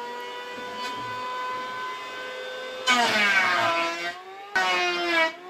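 Motorised machine from construction work outside, whining at a steady pitch, then much louder about three seconds in with its pitch dropping and recovering, and again briefly near the end.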